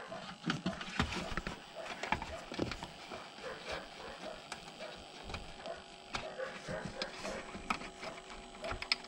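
Scattered light clicks and small knocks of cable plugs and plastic parts being handled at a cable TV set-top box while a loose cable end is traced and reconnected.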